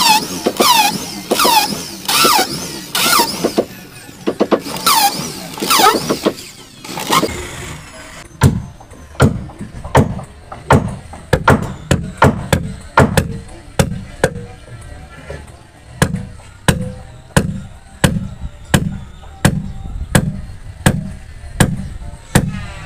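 Handheld electric drill boring into a wooden boat frame, its motor whining in short repeated bursts, each falling in pitch. From about eight seconds in, a hammer drives a 10 mm iron rod down into the drilled hole: a steady run of sharp metallic blows, a little under two a second.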